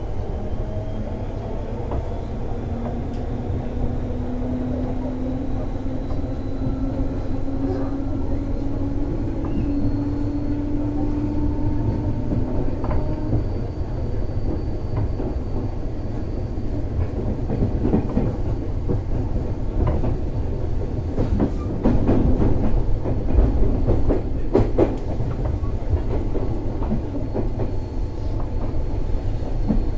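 JR East 205 series (600 subseries) electric multiple unit, heard from inside the car: a motor whine rises in pitch over the first dozen seconds as the train gathers speed, then steady running rumble with clacks of the wheels over rail joints, loudest a little past halfway.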